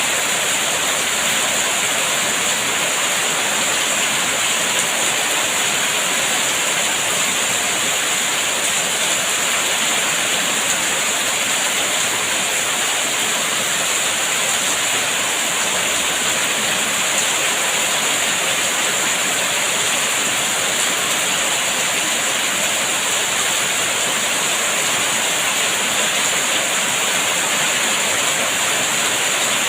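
Steady rain, an even hiss that holds constant throughout, with no single drops standing out.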